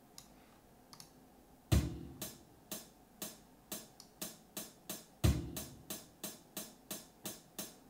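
Sampled electronic drum beat: a kick drum about two seconds in and again about five seconds in, with hi-hat ticks about two to three a second, after a second or two of faint mouse clicks. It is a simple programmed pattern with the hi-hat on every beat over the kick.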